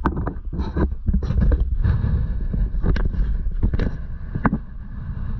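Wind rumbling on the microphone, with irregular knocks and scuffs of footsteps on wooden dock boards.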